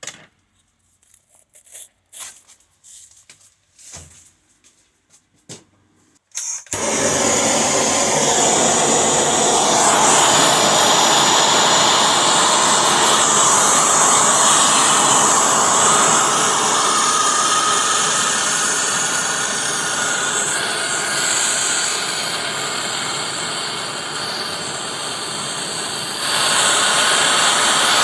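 A few light clicks and taps, then a gas torch catching with a short sputter and burning with a loud, steady rushing hiss. The flame noise dips slightly and comes back up near the end.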